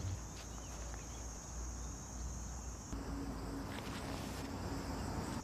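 Steady, high-pitched insect trilling over a low rumble of outdoor background noise; the trilling changes about three seconds in.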